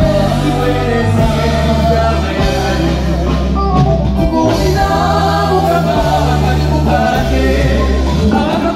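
A singer with a live band performing a song over a loud bass line.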